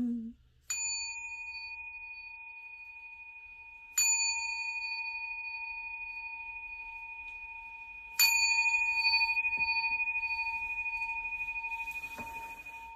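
Buddhist altar bowl bell (rin) struck three times, about four seconds apart, each strike ringing on in a long slow fade; the third strike is the loudest.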